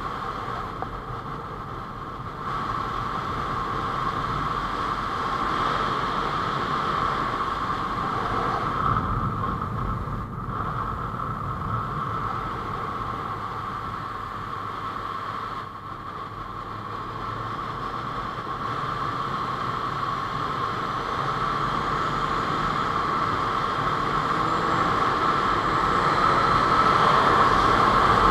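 Honda CBR600F4i inline-four engine running under way, mixed with wind rush on a helmet-mounted microphone. It dips briefly a few times and grows louder towards the end.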